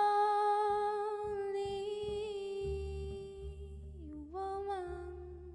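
A female singer holds one long sung note with a slight vibrato on a slow jazz ballad, dips briefly and settles on a new held note about four seconds in, then starts to slide down at the end. Quiet low notes and light taps from the band sit underneath.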